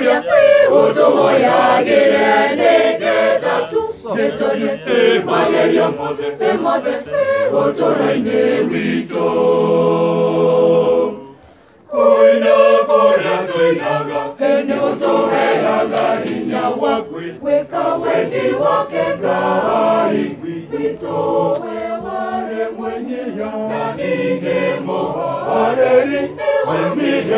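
Mixed choir of men's and women's voices singing a cappella. About eleven seconds in, a held chord dies away, there is a short break, and the singing starts again.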